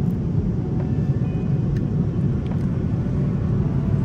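Steady airliner cabin noise in flight: an even low rumble from the engines and airflow, with a few faint clicks.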